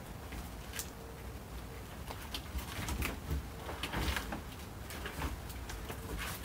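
Heavy firewood log rounds knocking and thumping as they are rolled and shifted on a horse trailer's floor, heard at a distance as scattered knocks with a few heavier thumps near the middle.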